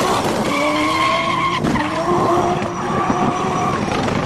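Hot oil sizzling around french fries in a frying pan, with a held squealing tone of several pitches over the hiss that breaks off and resumes.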